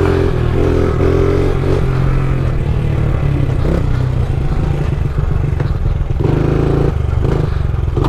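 Small dirt bike engine running as it is ridden through a wheelie. Its note rises and falls as the throttle is worked, breaking up in the middle and picking up strongly again near the end.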